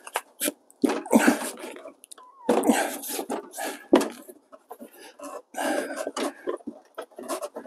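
Irregular rustling and rubbing noises, in uneven bursts, as a dented plastic front bumper softened with hot water is pushed back out by hand from behind.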